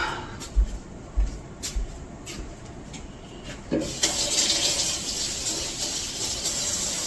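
A few soft thumps and light clicks, then about four seconds in a sink faucet is turned on and water runs steadily into the sink for hand washing.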